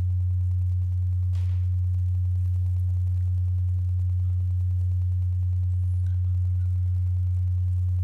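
A steady low hum: one pure low tone that holds unchanged, with only faint specks of other sound above it.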